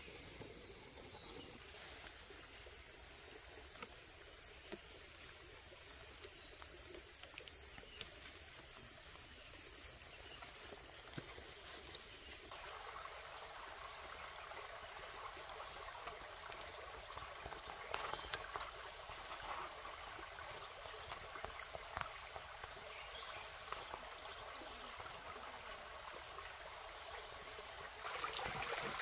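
Steady high-pitched insect chorus over trickling stream water. The insect tone shifts about twelve seconds in, scattered light clicks and taps follow, and the water grows louder near the end.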